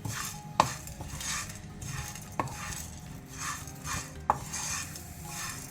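Whole spices (coriander seeds, cumin, black pepper and tulsi leaves) being stirred while dry-roasting in a pan: a run of short scraping swishes as the seeds are pushed around, with three sharp clinks of the spoon against the pan.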